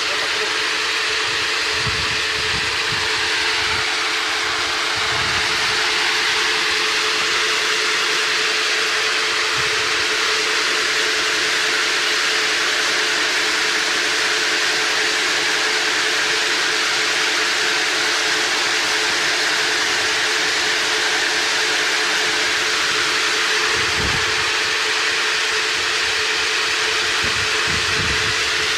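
Pistachio hulling machine running steadily: a constant mechanical hum with a dense hiss over it, and a few brief low thumps near the end.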